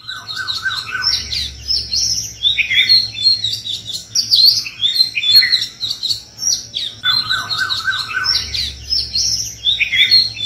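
A dense chorus of songbirds chirping and twittering, many short calls overlapping. A run of lower, falling notes near the start comes back about seven seconds in, with the rest of the pattern after it, as in a looped recording.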